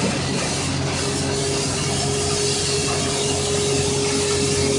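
Dry ice blasting gun hissing steadily as it sprays a jet of air and ice into an electronics chassis to clean soot and grime off its circuit cards. A steady hum and a steady mid-pitched tone run underneath.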